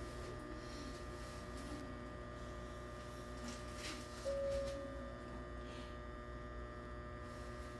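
Steady electrical hum of a Hankyu train standing in a station with its doors open, several steady tones over a low rumble. About four seconds in, a single clear beep sounds for about a second.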